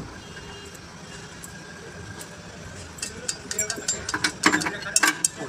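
Steel hand tools clicking and clanking against the truck's lift-axle hub and brake parts. A quick, irregular run of sharp metallic clicks starts about three seconds in.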